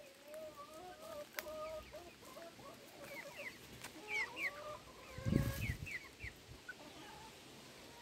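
Chickens clucking in short repeated notes, mixed with quick high peeping chirps from young birds. A dull thump about five seconds in.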